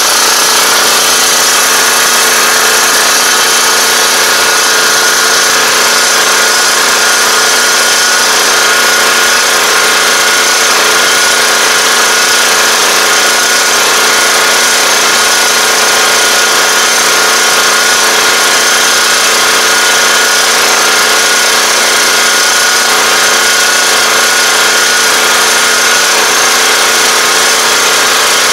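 2021 Iseki five-row rice transplanter running steadily as it drives through a flooded paddy, its engine and planting mechanism heard at close range with a steady whine over the noise.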